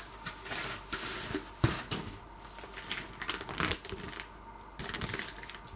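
Bacon packaging (a cardboard sleeve and plastic film pack) being opened and handled: irregular crackling and clicking, with one sharper snap about a second and a half in.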